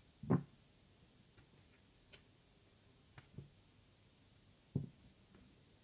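Light knocks and clicks of a circuit board being clamped into the metal alligator clips of a helping-hands stand and the stand being handled. The loudest knock comes just after the start, another about three seconds in and one near the end, with fainter clicks between.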